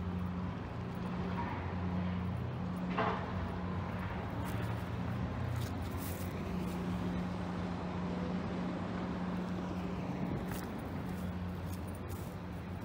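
A vehicle engine running, a low steady hum that comes and goes slightly, with one brief higher-pitched sound about three seconds in.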